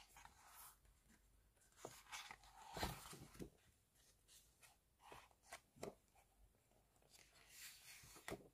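Pages of a large photobook being turned by hand: faint paper swishes and rustles, the loudest a little under three seconds in and another near the end, with light taps in between.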